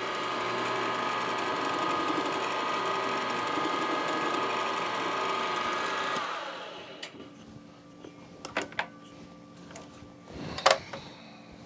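Benchtop milling machine spindle running with a steady whine, switched off about six seconds in and spinning down. A few sharp metal clicks and knocks follow as tools and parts are handled on the machine table.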